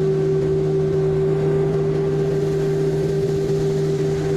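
Diesel engine of heavy farm machinery running at a steady speed: a constant, even drone that holds one pitch throughout.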